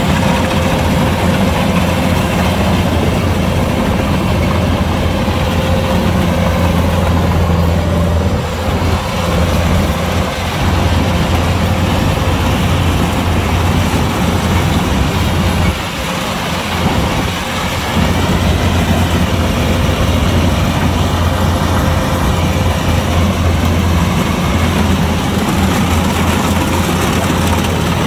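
Kubota DC-105X combine harvester's diesel engine running steadily, a constant low hum that briefly drops in level twice, about 9 and 16 seconds in.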